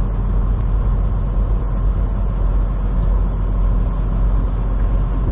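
Semi truck on the move, heard from inside the cab: a steady low engine drone with road noise.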